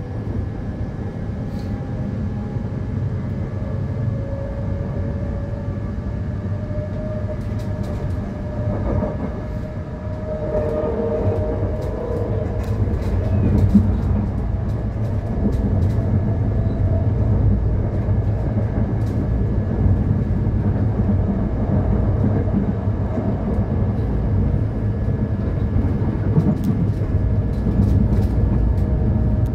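Electric commuter train running along the line, a Matangi electric multiple unit: a steady rumble with a motor whine that rises slowly over the first ten seconds or so and then holds, and scattered clicks of wheels over the rails.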